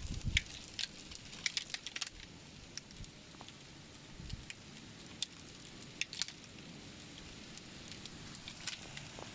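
Hailstones ticking irregularly as they hit the window sill, frame and notebooks, over a steady hiss of falling hail and rain. A couple of low thumps come right at the start.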